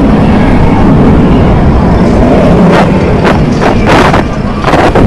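Wind buffeting the camcorder microphone: a loud, unsteady low rumble, with several sharp gusts or crackles in the second half.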